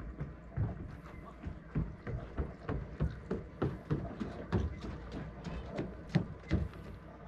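Footsteps on a boat jetty: an uneven run of knocks and thuds, about three a second.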